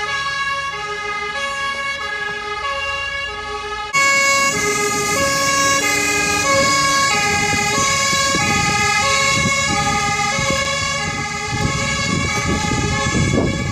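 Fire engine's two-tone siren, alternating between a high and a low note, each held a little over half a second. About four seconds in it becomes louder and nearer, with the rumble of passing vehicles on the road underneath that grows near the end.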